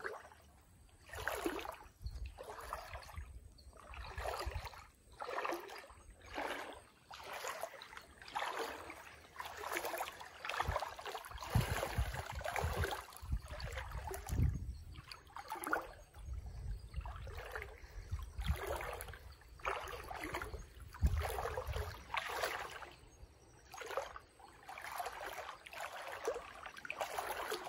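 Footsteps sloshing through shallow creek water at a slow walk, about one step a second, with some low bumps between them.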